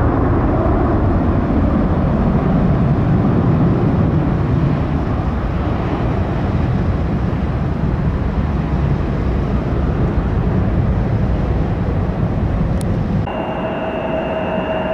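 Jet airliner engines running with a loud, steady rumble. About 13 seconds in it cuts off abruptly, and a quieter steady high whine from jet engines takes over.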